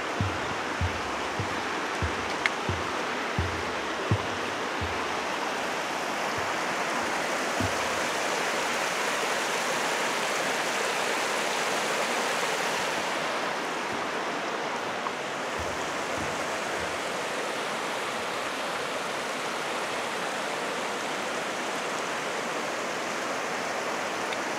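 A creek rushing over rocks below a footbridge, a steady hiss of water. Over the first few seconds, footsteps thud on the bridge deck at a walking pace, about two a second, then mostly stop.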